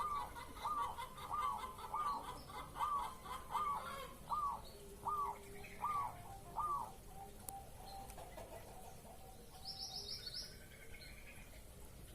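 Zebra dove (perkutut) singing its cooing song: a run of about a dozen short arched coos, roughly two a second, that stops about seven seconds in. A brief high chatter of another small bird follows near the end.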